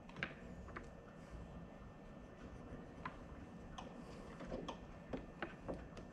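Faint, scattered small clicks and light scrapes of a sharp knife blade being drawn across the black insulated wires of a car's tailgate wiring loom, feeling for the copper of the reverse-light wire. No continuity beep sounds from the multimeter.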